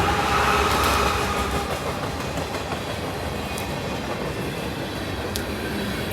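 CSX freight train running past, a steady rolling rush of wheels on rail with some clickety-clack. The horn's last notes fade out in the first second or so.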